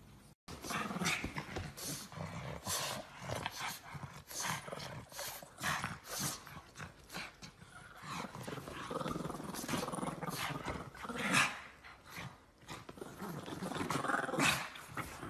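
Two pugs play-fighting, growling at each other in a rapid, irregular stream of rough noises.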